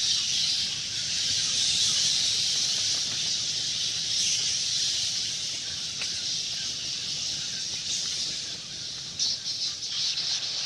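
A swarm of bats chittering: a dense, continuous high-pitched twittering of many overlapping calls, with a few sharper crackles near the end.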